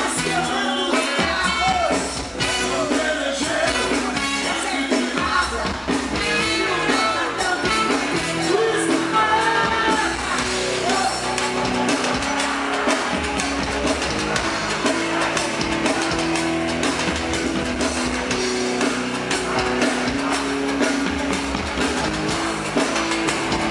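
Live band playing through the stage PA: a woman singing lead over electric guitar and hand percussion such as congas, with a steady beat. Sustained held notes take over in the second half.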